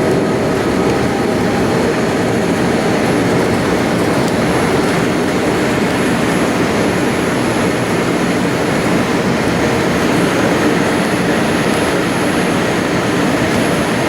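Steady jet engine and rushing-air noise as heard inside the cabin of a Boeing 787-8 airliner, even and unchanging.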